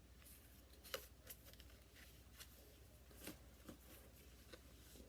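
Faint, scattered rustles and clicks of trading cards being handled, with a slightly louder click about a second in and another a little after three seconds.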